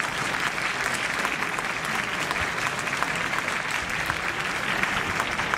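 Applause from many people: a steady patter of many hands clapping at once.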